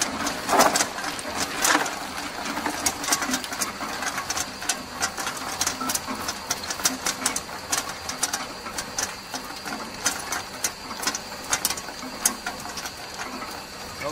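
Solid tube ice cylinders clattering and clinking as they tumble out of a tube ice machine's discharge chute onto a pile in a plastic tub during the ice harvest, with a steady high tone underneath. A few louder crunches come in the first two seconds as a hand rummages in the ice.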